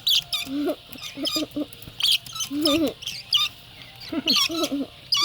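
Rainbow lorikeets giving short, harsh screeching chatter calls in repeated bursts.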